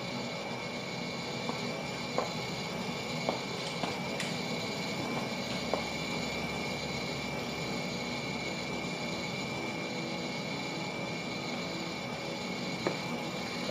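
Mill City 1 kg drum coffee roaster running steadily mid-roast, with a few faint clicks.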